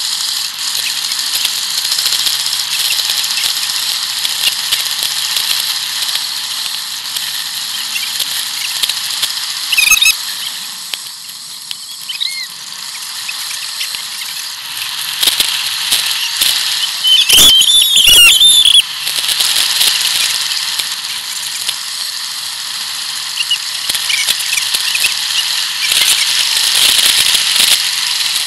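Steady rush of wind and tyre noise from a bicycle going fast downhill, with bicycle brakes squealing: briefly about ten seconds in, then loudest and longest at about seventeen to nineteen seconds.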